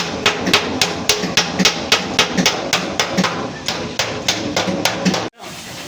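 Hand hammer beating the sheet-metal body panel of a Suzuki Ravi pickup during accident dent repair: quick, regular strikes at about four a second. The hammering stops abruptly near the end.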